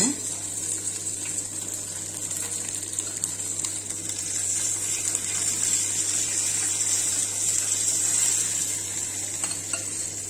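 Tempering sizzling in hot oil: mustard seeds, urad dal, green chili and curry leaves frying with a steady hiss, with a few faint pops near the end.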